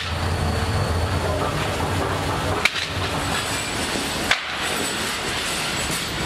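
Steady factory workshop noise with two sharp knocks, about two and a half and four seconds in.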